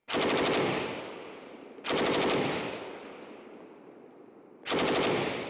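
IWI Negev NG-7 7.62×51mm belt-fed machine gun firing three short full-auto bursts of about half a second each, one at the start, one near 2 seconds and one near 5 seconds. Each burst is followed by an echo that dies away over a second or two.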